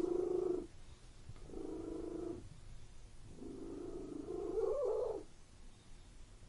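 Domestic cat purring in three separate breaths with short pauses between them. The last breath is longer and rises in pitch toward its end.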